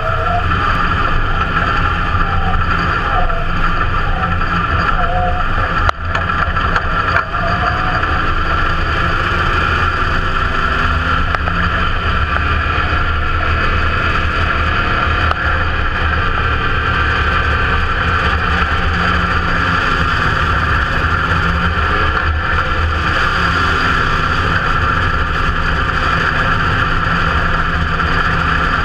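IMCA Modified race car's V8 engine running steadily, heard from inside the cockpit, its revs rising and falling slightly as the car rolls along the dirt track. A single sharp knock comes about six seconds in.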